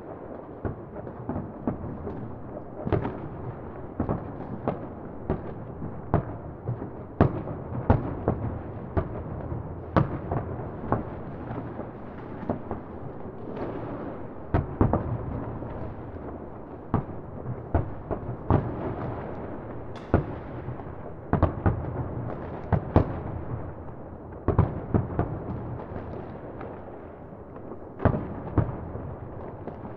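New Year's Eve fireworks and firecrackers going off: many sharp bangs at irregular intervals, about one or two a second, over a continuous rumble of more distant explosions.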